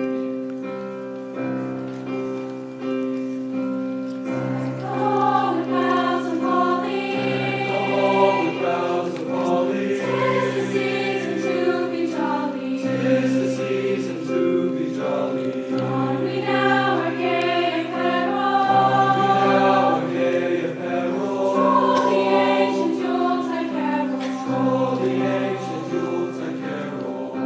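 A mixed high school choir of boys' and girls' voices sings in parts, the voices growing fuller about four seconds in.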